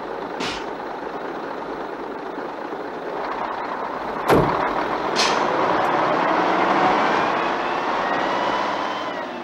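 Tatra concrete mixer truck's diesel engine running, with short hisses of air about half a second and five seconds in and a loud thump a little after four seconds. The engine then climbs in pitch as the truck pulls away.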